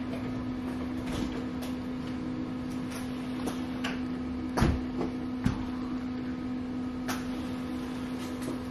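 Steady hum of a running appliance, with a few scattered clicks and knocks over it; the loudest knock comes about halfway through.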